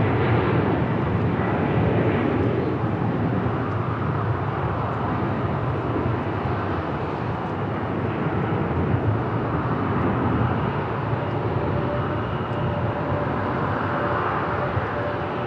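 Jet airliner engine noise: a steady rushing roar with a deep rumble, slowly fading, with a faint steady whine coming in near the end.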